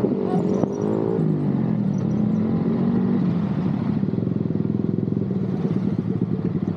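Sport motorcycle engines decelerating, their pitch falling over the first few seconds as the bikes roll to a stop, then settling into a steady idle with an even, rapid pulsing beat.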